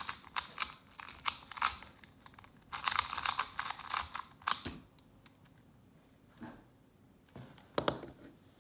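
A 2x2 speed cube being turned fast in the hands: a rapid run of plastic clicks and rattles for about five seconds, ending in a sharp tap. Then a couple of soft knocks follow near the end.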